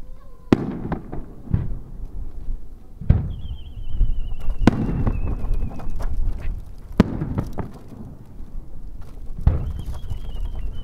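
Aerial firework shells bursting one after another: about six sharp booms a second or two apart, each trailing off in a low rumbling echo. Twice a wavering whistle, falling slowly in pitch, rides over them from whistling shells climbing into the sky.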